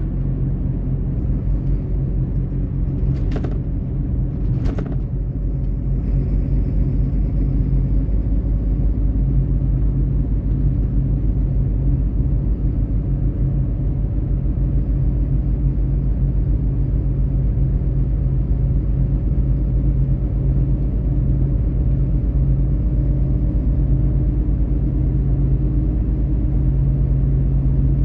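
Truck engine and road noise heard from inside the cab while driving: a steady low drone with a constant engine tone. Two short clicks come about three and five seconds in.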